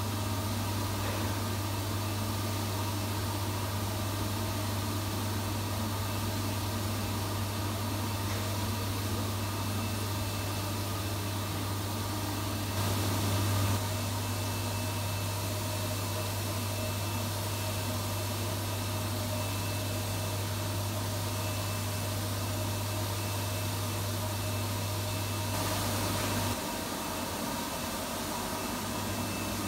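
AlterG Anti-Gravity Treadmill running, its blower keeping the sealed air bag pressurised: a steady hum and air noise with a strong low hum, which drops away for a few seconds near the end.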